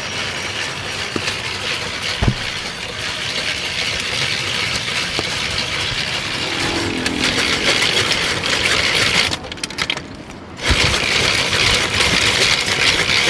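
Ice being shaved into crushed ice for gola ganda, a steady grating, motor-like noise that cuts out for about a second and then starts again.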